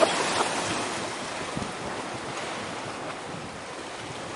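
Sea waves washing against the shore, heard as a steady rush of noise with wind buffeting the microphone. The noise eases slightly after the first second.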